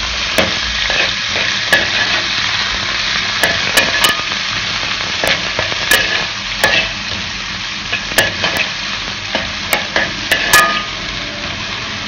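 Chopped onions, dried red chillies and curry leaves sizzling as they are sautéed in hot oil in a metal pan. A metal spoon stirring and scraping against the pan gives a steady hiss broken by many irregular sharp clicks.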